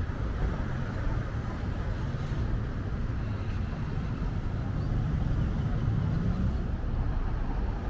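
Outdoor street ambience: a steady low rumble of road traffic that swells a little about five to six seconds in.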